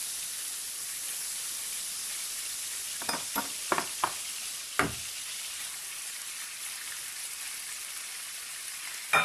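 Butter sizzling in a hot frying pan, a steady frying hiss, with a few short knocks of a utensil a few seconds in.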